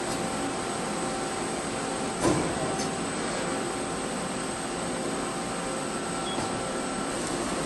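Machinery running steadily, a noisy hum with several steady tones and a faint high whine, with one short clunk about two seconds in.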